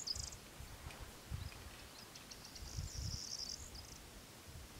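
Wind buffeting the microphone in uneven low gusts, with a short high chirping trill twice, once at the start and again about three seconds in.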